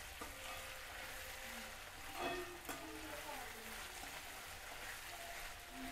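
Chopped vegetables sizzling in a hot frying pan, a faint steady hiss.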